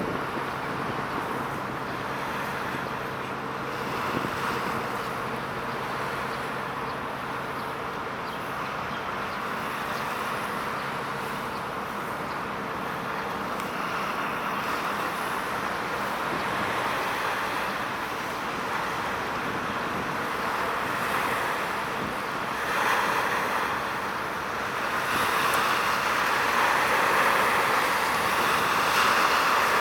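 Steady wind noise on the microphone over a low background rumble, growing louder over the last few seconds.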